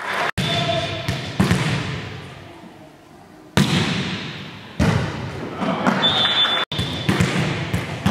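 A volleyball struck several times in a rally, each hit a sharp smack that echoes around a gymnasium, with a short high whistle tone about six seconds in.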